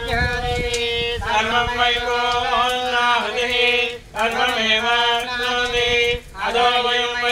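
Hindu devotional chanting, long held notes that bend in pitch, broken by short breath pauses about four and six seconds in.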